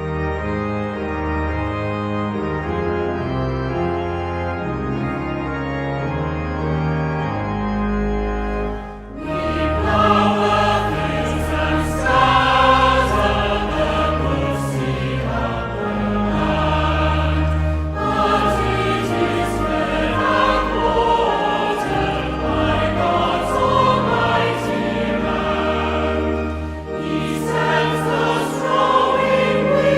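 Organ playing a hymn's introduction in steady held chords. About nine seconds in, a choir comes in singing the hymn over the organ.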